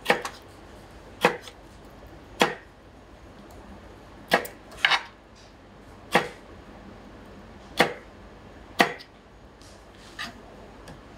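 Kitchen knife cutting tomato on a cutting board: about nine separate sharp knocks of the blade striking the board, unevenly spaced roughly a second apart.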